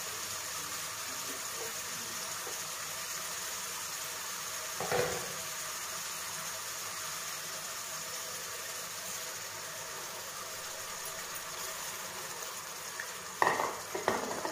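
Onion-tomato masala frying in oil in an aluminium kadhai, a steady sizzle. A single knock comes about five seconds in, and a few clinks near the end.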